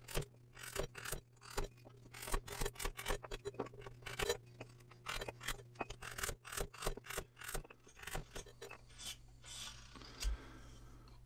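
Clogger's knife, a long lever blade hooked to a chopping stump, pressed down again and again to slice chunks off a wooden block: a quick run of sharp cutting cracks and scrapes. Near the end, quieter scraping as a small carving knife shaves the wood.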